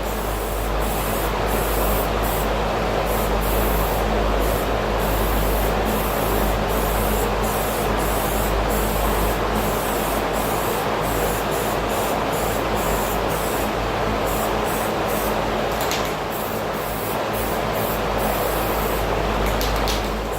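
Paint being sprayed: a steady hiss with a low hum underneath.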